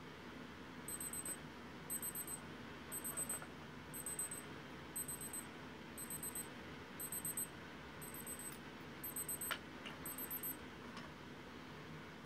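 Casio G-Shock G-5600E countdown timer going off as it reaches zero: short bursts of rapid, high-pitched beeping, about one burst a second, about ten in all, stopping about ten and a half seconds in.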